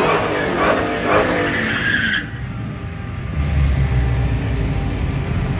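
Dodge Challenger Hellcat doing a burnout: tyres squealing over the engine at high revs, which cuts off suddenly about two seconds in. After that, a deep, steady rumble from the car's supercharged 6.2-litre Hemi V8.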